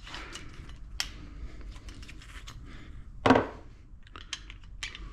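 Hand tools and sockets being handled: scattered small metal clicks and taps, with one louder clunk a little over three seconds in.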